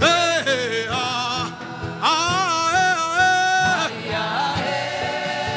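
Worship music: a voice sings two long, drawn-out phrases with vibrato over sustained keyboard chords and a light, regular beat.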